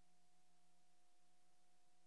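Near silence: faint steady hiss with a low hum from a silent film transfer.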